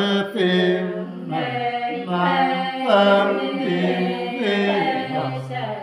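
A man singing unaccompanied in a slow, chant-like style, holding long notes that step down in pitch and then rise again.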